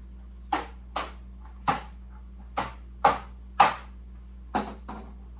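A dog barking off and on, about eight short sharp barks at uneven intervals, over a low steady hum.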